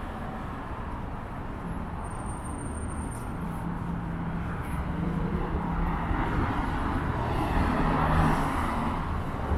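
Street traffic: a motor vehicle passes by, growing louder from about halfway through to a peak near the end, then easing off, over a steady low engine hum.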